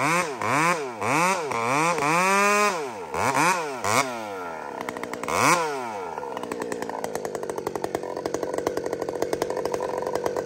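Husqvarna 572 two-stroke chainsaw with a modified exhaust pipe, revved up and down in a series of quick throttle blips. About five or six seconds in it drops back to a steady idle.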